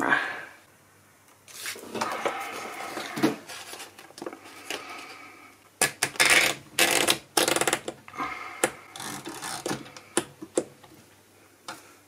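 Olympia manual typewriter being loaded with paper by hand: rustling handling and paper sliding, then a run of sharp clicks and knocks about six seconds in as the platen knob is turned to wind the sheet in.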